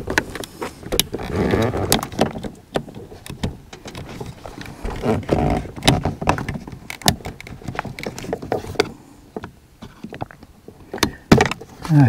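Scattered clicks, taps and light rattles of a small screwdriver prying at plastic wiring connectors inside a car door, with rustling handling sounds between them.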